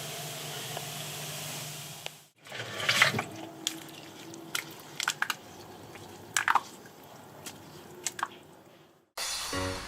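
A steady fizzing hiss that cuts off about two seconds in, then scattered wet drips, squelches and clicks of foaming liquid, typical of cola foaming over after Mentos are added.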